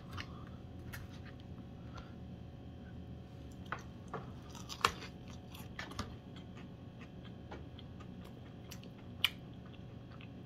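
A person chewing a mouthful of stuffed waffle with sausage and egg, with a few sharp clicks of a fork, the loudest about five seconds in and another about nine seconds in.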